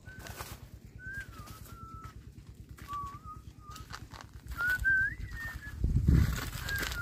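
A bird's thin whistled calls, a string of short wavering notes with the longest, rising one near the end, over light footsteps and rustling in dry grass and leaves. A low thump comes about six seconds in.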